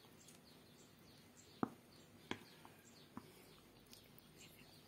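A metal spoon clinks three times against a glass mixing bowl as flour and ghee are stirred together, with faint bird chirps in the background.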